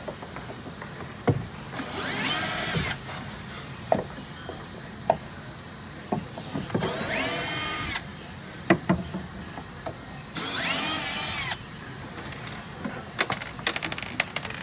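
Cordless drill-driver backing out screws under a boat's bench seat: three runs of about a second each, its motor whine rising and falling. Clicks and knocks of handling come in between.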